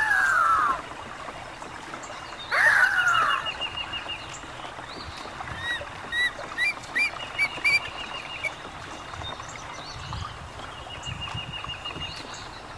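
Birds calling: a loud falling call at the start and another about three seconds in, then rapid chittering trills and short rising chirps. Near the end, wind buffets the microphone with a low rumble.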